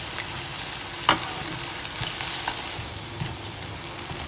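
Turon (banana spring rolls with brown sugar) sizzling and crackling in hot oil in a frying pan as they are turned with metal tongs, with a sharp metallic clink about a second in. The crackling eases to a softer sizzle near the end.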